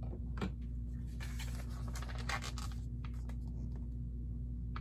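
Hands handling Lego pieces: plastic scraping and rubbing with scattered light clicks, busiest between about one and three seconds in, over a steady low hum.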